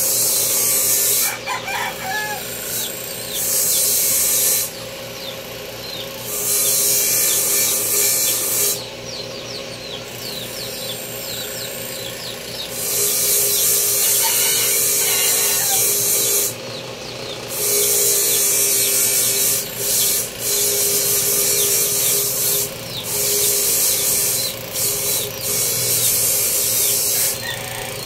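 A power grinder running with a steady hum, a workpiece pressed against it in repeated passes of one to four seconds that each give a hissing grind. A rooster crows in the background about a second and a half in and again midway.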